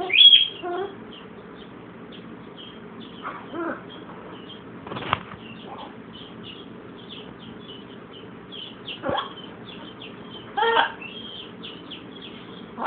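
Blue-and-gold macaw making short cough-like sounds and brief calls, about seven spaced a second to several seconds apart, the loudest just at the start. The macaw is mimicking a cough while it has a cold.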